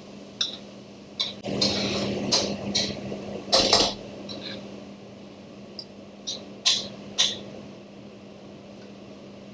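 A spoon or spatula stirring and scraping a thick spice-and-tomato masala base in a metal pan, with sharp knocks against the pan, the busiest stretch from about one and a half to four seconds in and a few more taps around seven seconds. A steady low hum runs underneath.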